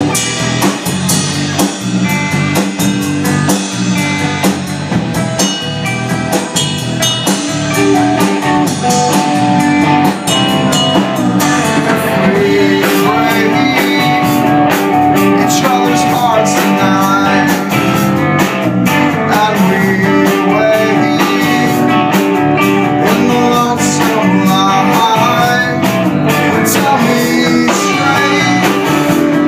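A rock band playing live: electric guitar, bass guitar and drum kit, getting louder over the first ten seconds or so and then holding steady.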